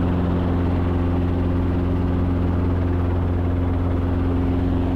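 Small helicopter flying low on its landing approach: the engine and rotor make a steady drone with a constant low hum.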